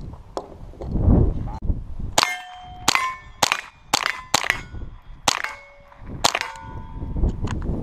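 A Ruger .22 rimfire pistol fired rapidly at steel plates: about eight sharp shots in roughly four and a half seconds, starting about two seconds in, with the plates ringing briefly as they are hit.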